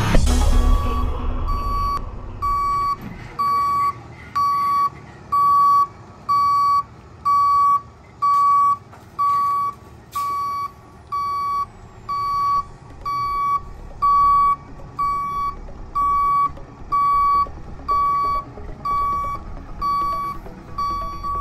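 Delivery truck's reversing alarm beeping steadily, about three beeps every two seconds, over the low running of the truck's engine. A loud rush of noise comes right at the start.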